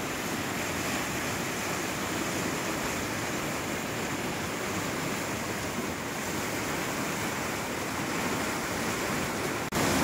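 Steady rush of the Río Santiago's flowing water, an even noise of the current. It cuts out for an instant near the end and resumes slightly louder.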